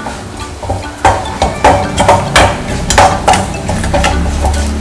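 Steel spoon stirring fried shallots and spice powders around a metal kadai: irregular metal-on-metal scrapes and knocks over a light sizzle of oil, as the spices are cooked to take off their raw taste.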